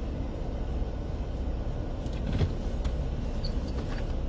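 Low steady rumble of a car, heard from inside the cabin, with one thump about two and a half seconds in and a few light clicks after it.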